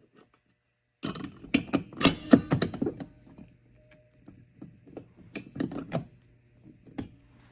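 Manual fire alarm pull station being reset by hand: a quick run of plastic and metal clicks and clatter starting about a second in, then scattered single clicks.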